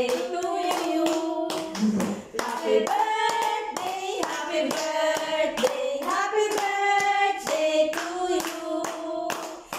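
A group singing a birthday song together, with hand claps on the beat at about two a second.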